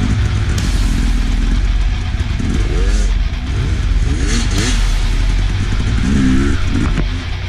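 Enduro dirt bike engines revving up and down in repeated surges as the bikes ride over a rough forest trail, over a steady low rumble of wind and jolts on a helmet camera.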